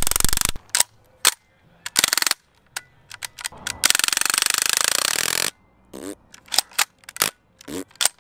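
Crosman A4P CO2-powered BB pistol firing on full auto. A rapid burst cuts off just after the start, then come a few single shots and a short burst. A longer even burst of about a second and a half starts about four seconds in, and scattered separate sharp clicks follow near the end.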